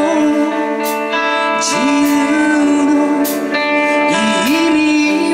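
Live band playing a slow song with guitars, bass, keyboard and drums, cymbals ringing out on the beats. Over it a lead line of long held notes scoops up into pitch twice.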